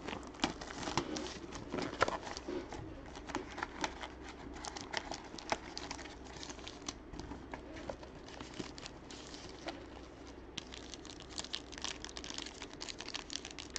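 Plastic wrapping on trading-card boxes crinkling and tearing as it is pulled open, a run of small irregular crackles that gets busier in the last few seconds.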